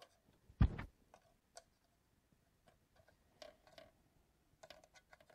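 Light scattered clicks of metal tweezers working among small parts at the back of a 3D printer's heated bed, with a single dull thump about half a second in.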